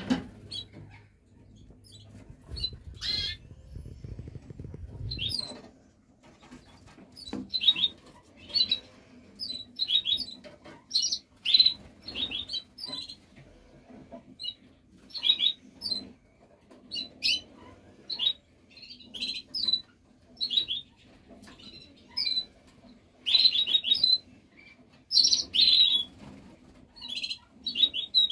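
Canaries giving short, repeated chirps and twittering notes throughout, with bursts of wing-fluttering and splashing as they bathe.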